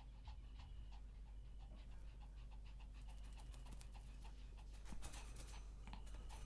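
Small papillon dog panting quickly and steadily, faint and close.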